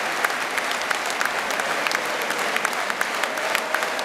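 Stadium crowd noise: a steady din from thousands of fans, with many sharp claps scattered through it and faint distant shouts.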